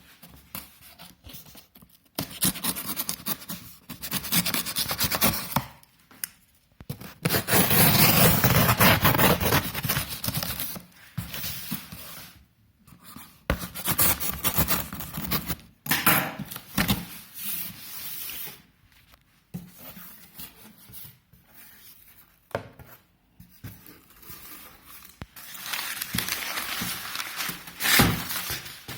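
Packaging being handled while a grill pan is unboxed: irregular bursts of rubbing, scraping and tearing, with short pauses between them and a sharp knock near the end.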